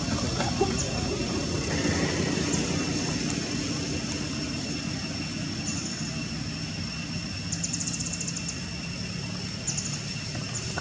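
Steady outdoor background noise: a constant rushing haze with a low steady drone and two thin, steady high tones, broken a few times by short trains of rapid, high-pitched ticks.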